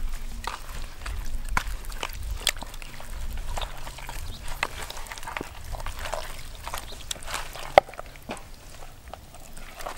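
Hands rubbing and kneading a wet spice marinade into raw poultry in a plastic basin, making irregular wet smacks and clicks, with one sharp click a little before the end.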